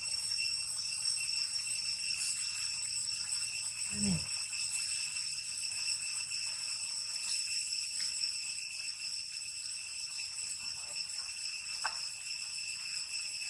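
Steady, high-pitched droning of insects, likely cicadas, holding several even tones without a break. A short, low, falling sound comes about four seconds in.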